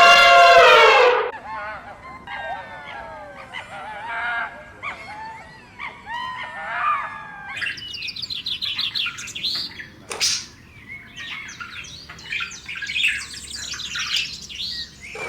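A loud, honking call in the first second or so, then several birds chirping and singing in short trills and gliding whistles, with a sharp click about ten seconds in.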